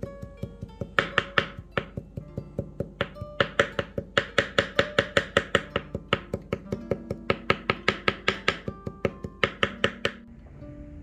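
Kitchen knife rapidly chopping parsley on a wooden cutting board: quick sharp knocks about five a second in several runs with short pauses, stopping about ten seconds in. Plucked-guitar background music plays underneath.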